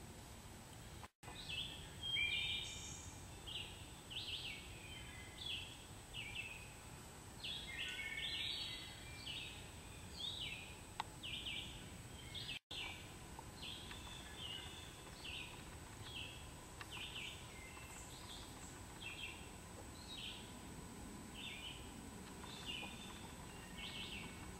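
Faint wild bird song: a long string of short, high chirps, about two a second, over a steady hiss. The sound cuts out for an instant twice, about a second in and about halfway through.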